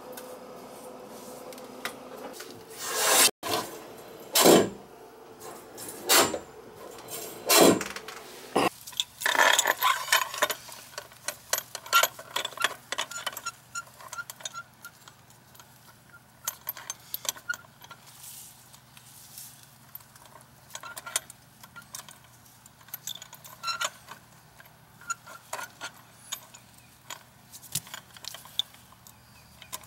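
A few loud knocks, then many small metal clicks and clinks of a hand wrench working on an outdoor sill faucet.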